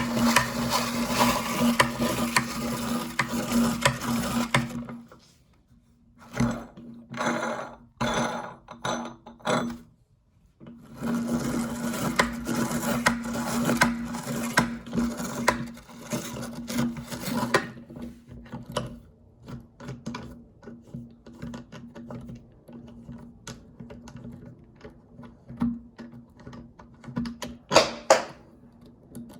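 Electric meat grinder motor running with a steady hum while crunching hard candy. It cuts out about five seconds in, runs in a few short bursts, then runs again for several seconds. Over the last third only small scattered clicks and rattles are left, like candy pieces.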